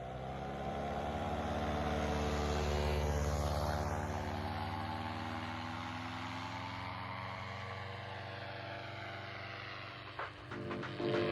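Paramotor engine and propeller running as the paramotor flies past. It grows louder over the first few seconds, then fades, and its pitch slides down as it passes.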